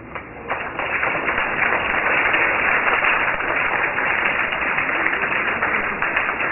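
Theatre audience applauding, breaking out about half a second in and then holding steady.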